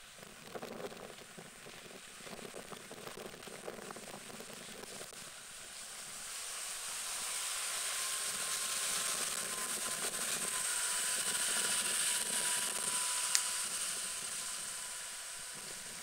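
Light irregular clicking, then the broad hiss of a distant aircraft with a faint steady whine, swelling up over several seconds and fading again. A single sharp click near the end.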